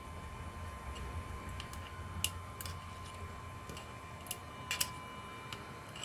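Scattered light clicks and ticks of metal tweezers picking at the parts inside an opened iPhone 7, over a low steady hum.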